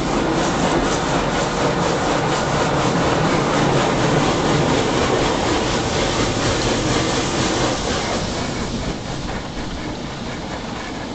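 High-pressure water jets of a Coleman Hanna Water Wizard touchless car wash blasting against the car, heard from inside the cabin as a loud, steady rushing spray. The spray eases off from about eight seconds in.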